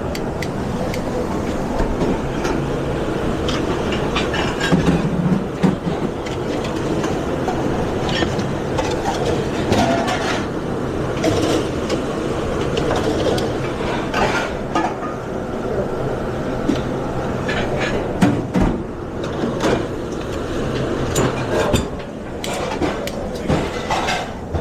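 Busy restaurant kitchen line: a steady loud rumble of kitchen equipment with frequent clinks and knocks of pans, plates and utensils.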